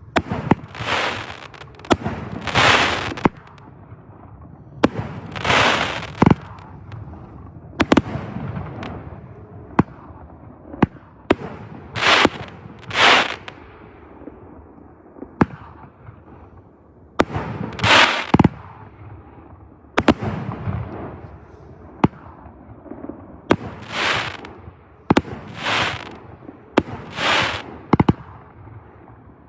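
Fireworks going off one after another: sharp bangs every one to three seconds, many followed by about a second of hissing crackle.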